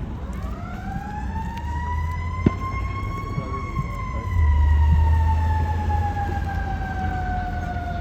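Fire engine siren: one long wail that rises over about three seconds, then slowly falls in pitch. A low rumble under it grows louder for a second or two about halfway through.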